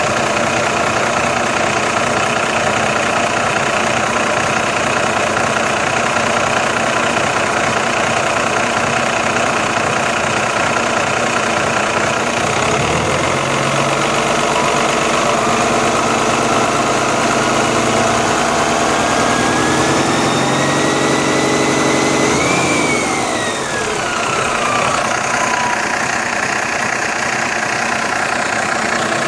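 Cummins diesel truck engine idling. About halfway through it is revved slowly: its pitch climbs steadily for some ten seconds, peaks, then drops back to idle over a few seconds.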